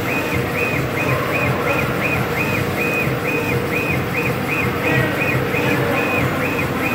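Stepper-driven gantry of a CNC laser stone-marking machine raster-scanning the laser head back and forth. Each pass makes a high motor whine that rises and falls, about three times a second, over a steady machine hum.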